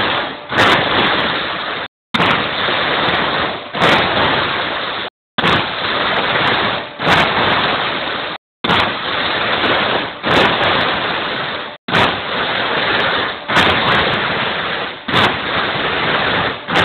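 CNC punching machine punching sheet metal: a sharp metallic hit about every second and a half over steady machine noise. The steady noise drops out for an instant several times.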